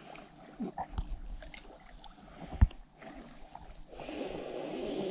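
Hands sifting and rubbing dry sand between the fingers: soft scattered crackles and small clicks, with one sharp thump about two and a half seconds in and a soft rushing noise building near the end.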